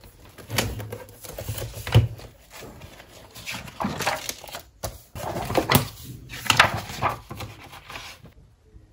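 Paper pages of spiral-bound notebooks being handled and turned, rustling and swishing irregularly, with a few knocks of the notebooks against the desk.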